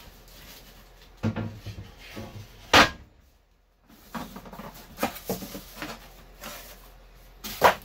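Handling noise from a router table kit being unpacked: parts and packaging shifting, with a loud sharp knock about three seconds in and another near the end.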